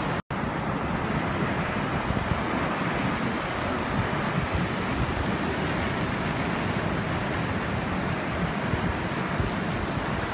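Steady rush of floodwater pouring over a dam's overflow spillway, with wind buffeting the microphone in gusts.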